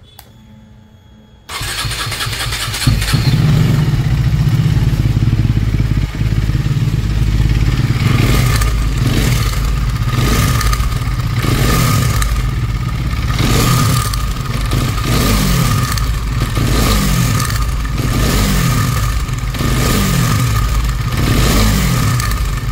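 KTM Duke 250 single-cylinder engine running, then revved in a series of quick blips from about 8 s in, with a steady high whine over the engine note. This is the abnormal engine noise that was traced to a worn timing chain and worn cams.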